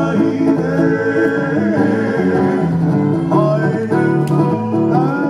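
Music: singing over a plucked-string accompaniment, steady throughout.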